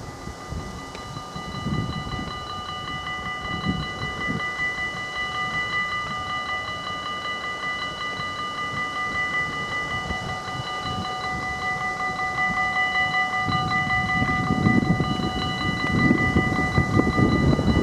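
Dutch level-crossing warning bells ringing in a fast, steady pulse. An approaching InterCity train's rumble grows louder over the last few seconds.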